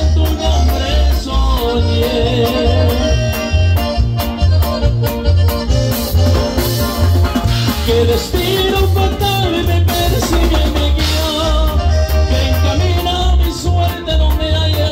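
Live Mexican dance music played loud through a PA: an accordion carries a wavering melody over a heavy, even bass beat and steady drum ticks.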